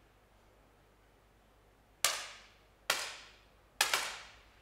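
Three 10m air pistol shots about a second apart, each a sharp crack that fades quickly in the range hall's echo.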